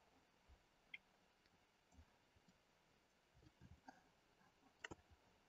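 Near silence with a few faint computer mouse clicks, the loudest a quick double click near the end.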